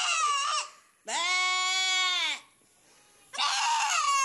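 A young goat bleating loudly three times: a wavering bleat, then a long steady one, then another wavering bleat near the end.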